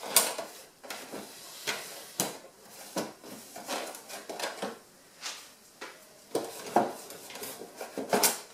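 Metal cutlery clinking and knocking against a plastic cutlery tray as it is wiped out by hand: a dozen or so irregular clicks and rattles, the loudest just after the start and near the end.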